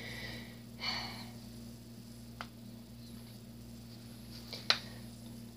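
Plush toys being handled on a wooden floor: faint rustling near the start and about a second in, then a small tap and, near the end, a sharper tap that is the loudest sound, over a steady low hum.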